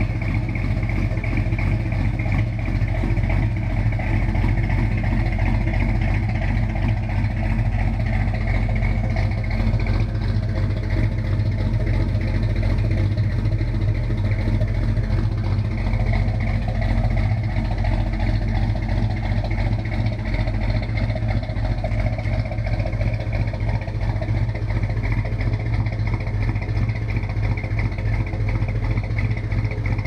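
Plymouth Duster 340's 340 cubic-inch V8 idling steadily, heard from behind at its twin exhaust tips.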